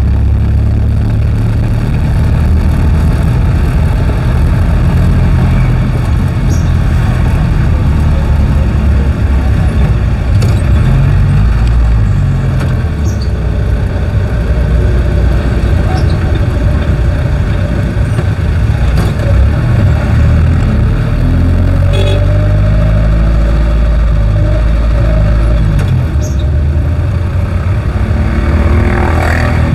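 Jeepney engine running as the vehicle drives, its pitch shifting up and down with the revs over steady road noise, heard from inside the cab.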